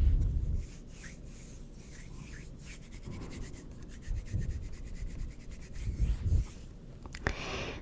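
Hands rubbing and brushing together close to the microphone, a dry crackly friction with low rumbles as the hands pass near it. In the middle comes a quick run of fine rustling strokes.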